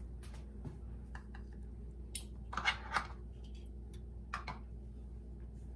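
Butter and chopped garlic heating in a small stainless saucepan on a gas burner, crackling softly with a few brief spitting sizzles about halfway through, over a steady low hum.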